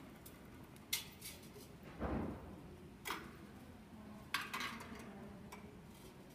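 Handling noise in a quiet room: a few sharp clicks and light clinks, and one dull thump about two seconds in.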